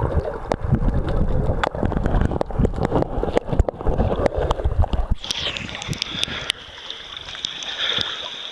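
Underwater sound picked up by a handheld camera as a snorkeler swims: a muffled, low rumbling water noise with many clicks and knocks. About five seconds in, the camera breaks the surface and the sound suddenly turns thin and open, with a steady high hiss.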